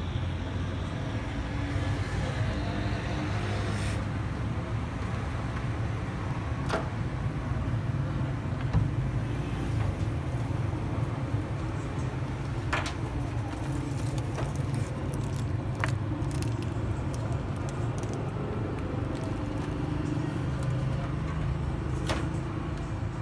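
Steady low rumble of street background noise, with a few sharp clicks scattered through.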